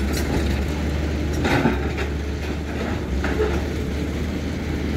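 Tractor engine running steadily, with brief clatters about one and a half and three seconds in.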